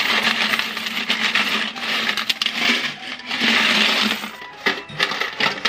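A large heap of coins pouring out of an upturned tin money box onto a growing pile, a dense metallic clatter that comes in two surges.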